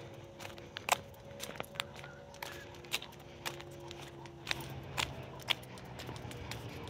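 Footsteps walking on a trail: a series of sharp, irregularly spaced steps over a faint steady low hum.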